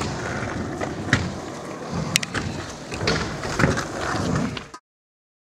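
Outdoor ambience with scattered clicks and knocks and faint voices in the background, cutting off suddenly to silence near the end.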